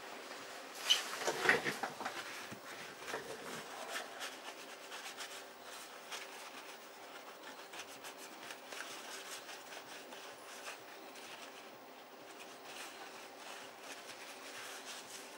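Hands picking up and handling a Samsung Galaxy S4 smartphone: rubbing and rustling with scattered small clicks, loudest about one to two seconds in.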